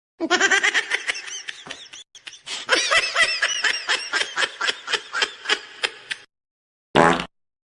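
Meme sound effect of a high, cartoonish snickering laugh: a rapid string of short pitched 'hehe' pulses, about four a second, with a brief break about two seconds in. A short pitched blip follows near the end.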